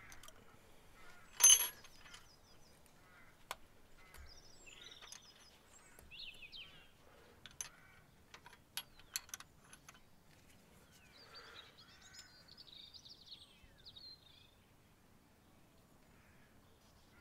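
Hand tools working on a BMW M10 engine's valve gear during valve clearance adjustment: one loud ringing metallic clank about a second and a half in, then scattered light metal clicks. Birds chirp faintly in the background.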